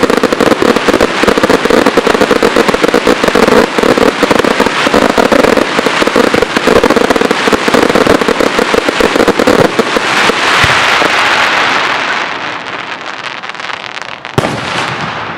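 Fireworks display barrage: dense, rapid bangs and crackling for about ten seconds, easing into a fading crackling wash, with one last single bang near the end.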